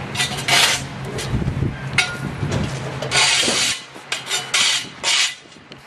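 A backhoe being worked, making a series of rough scraping and rasping strokes with knocks. A low steady hum underneath stops about two-thirds of the way in.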